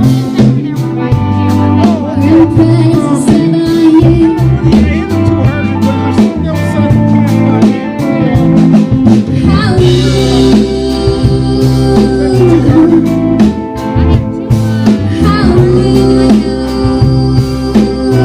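Live band playing a bluesy roots-rock song, with guitar, bass and a steady drum beat under a singer's voice.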